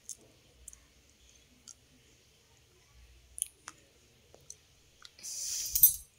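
Grass broom sweeping a tiled floor: scattered light ticks, then one louder bristle swish lasting under a second about five seconds in.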